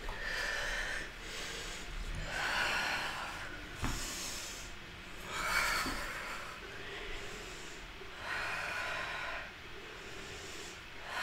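A woman breathing audibly and forcefully through her nose while flowing through yoga poses: a string of slow, drawn-out breaths in and out, one every second and a half to two seconds.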